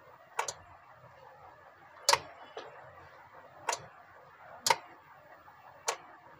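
Relay in a homemade phase changer clicking as it operates: five sharp clicks, unevenly spaced about one to one and a half seconds apart.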